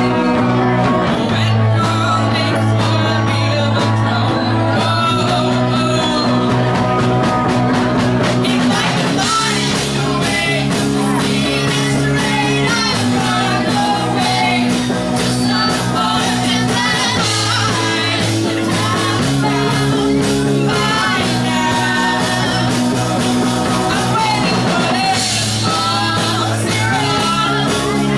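A rock band playing live with a singer: sustained guitar chords under a wavering vocal line.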